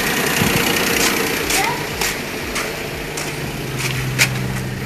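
A Perodua Kelisa's small three-cylinder engine idling steadily, its hum getting a little stronger about three seconds in. Several light clicks and knocks from handling sound over it.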